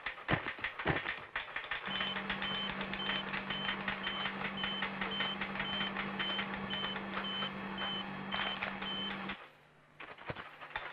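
Electronic sound effects from an old cut-out animated film's soundtrack: a steady low hum and short, high beeps about twice a second over a dense, rapid clatter of clicks. Shortly before the end the sound drops out for about half a second, then the clicking returns on its own.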